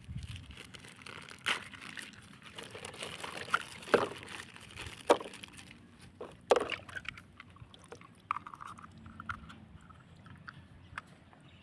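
Plastic toy bag crinkling and being torn open by hand, with several sharp crackles and snaps in the first half and softer rustling after.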